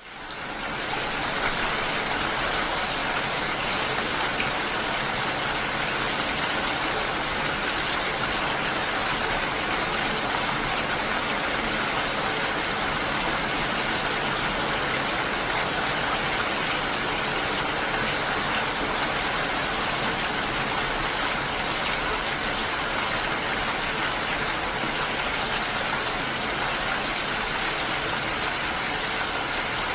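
Steady rain, an even hiss of falling drops with no breaks, fading in over about the first second.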